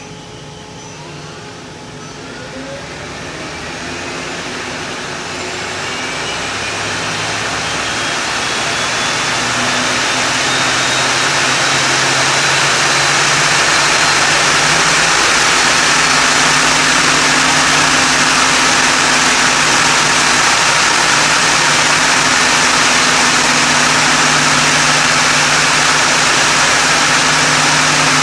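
Doosan Puma V400M vertical turning lathe spindle spinning up: a whine rises in pitch and a rush of noise grows louder over about twelve seconds, then the spindle runs steadily at speed.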